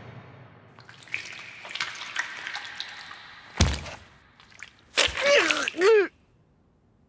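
Wet, dripping anime gore sound effects: scattered small squelches and a sharp thud about three and a half seconds in, then a short pained cry that bends up and down in pitch, cut off suddenly.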